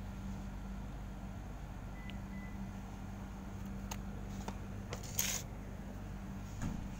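A plastic food tub being handled: a few light clicks, a short rustle a little after the middle, then a soft knock near the end as it is set down. A steady low hum underneath.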